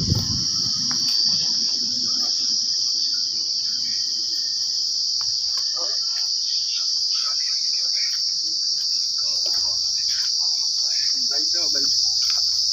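Loud, steady, high-pitched insect chorus of crickets or cicadas, a continuous shrill drone. There is a short thump right at the start.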